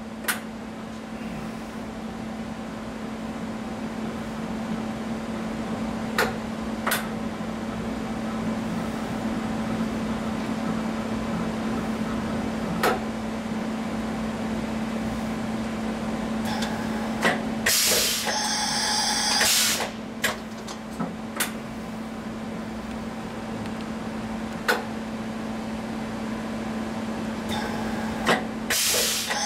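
Prodis PDL-1500L CNC vertical machining center running, with a steady hum and scattered sharp clicks. A loud hiss rises past the middle for about two seconds and comes again near the end.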